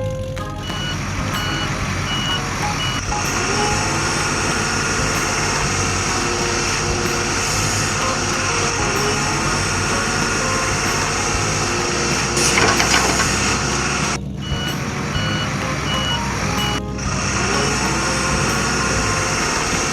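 Heavy construction vehicle's engine running steadily, with a reversing alarm sounding two runs of short, evenly spaced high beeps, one about a second in and another about two-thirds of the way through.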